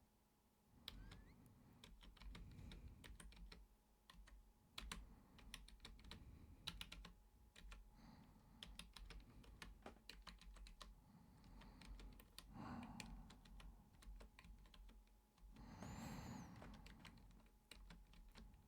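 Typing on a computer keyboard: quiet, irregular key clicks in quick runs with short pauses. Two soft rushing sounds break in, one about two-thirds of the way through and a longer one near the end.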